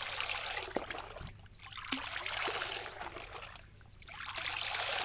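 Tap water splashing over a bunch of spinach leaves and into a basin of standing water, swelling and easing three times.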